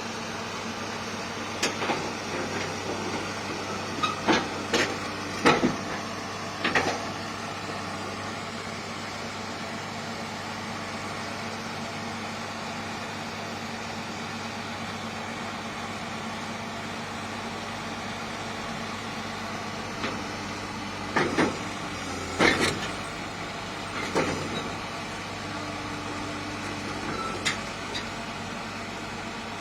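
A heavy diesel engine running steadily, with sharp metallic clanks, several in the first seven seconds and another cluster about twenty to twenty-eight seconds in.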